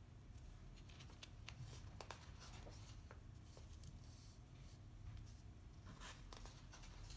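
Faint paper rustling and sliding as pages of a bound printed book are turned and smoothed flat by hand, with soft clicks of fingers on paper. One page turns about two seconds in, and another begins to lift near the end.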